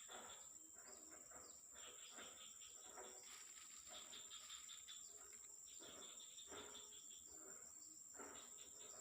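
Faint, steady high trilling of insects such as crickets, an even continuous drone.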